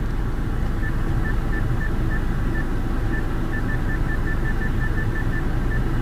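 Short high touch-feedback beeps from the Skoda Octavia's infotainment touchscreen as its scroll-down arrow is tapped, a few spaced out at first, then a quick run of about five a second, over a steady low cabin hum.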